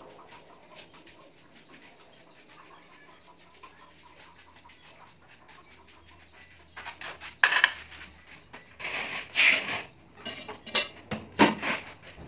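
Steel mason's trowel scraping and clinking on wet mortar and ceramic tile. After a quiet start it comes in three short bursts of clatter in the second half.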